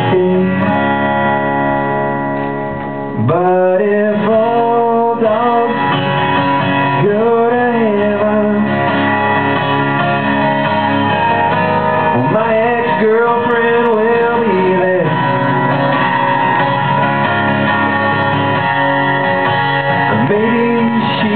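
A man singing to his own strummed acoustic guitar in a live performance. The voice drops out briefly about three seconds in, then comes back with long held notes over the chords.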